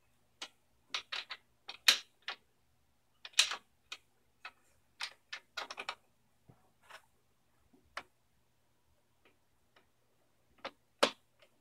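Irregular sharp clicks and knocks, some in quick clusters, from lowering a drill press table and handling the wooden block being set under the bit. A faint steady hum sits underneath.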